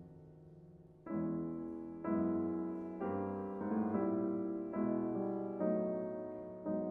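Grand piano playing contemporary classical music: a soft, fading chord, then from about a second in, full chords struck roughly once a second, each left to ring.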